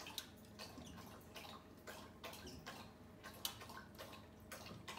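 Faint, irregular clicks and taps of metal kitchen tongs against a stainless steel bowl of ice water as green beans are moved into it, with light watery sounds.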